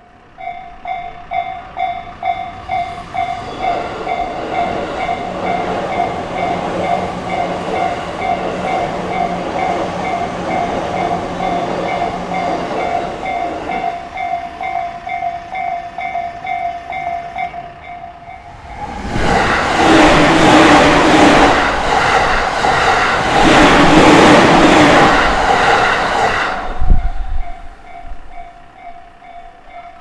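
Japanese level-crossing warning bell ringing in a fast repeating ding throughout, while trains pass on the crossing: a first, moderately loud one from about 3 to 14 seconds in, then a louder one close by from about 19 to 26 seconds in, with rhythmic wheel clatter over rail joints. A low thump follows just after the second train.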